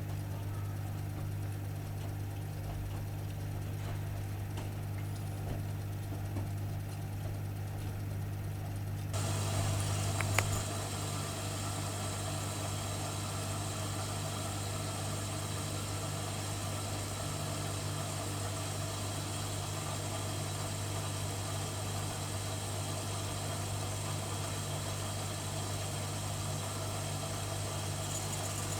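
AEG Öko-Lavamat washing machine running its wash cycle with a steady low hum; about nine seconds in a broad hissing rush sets in and continues, with a sharp click about a second later.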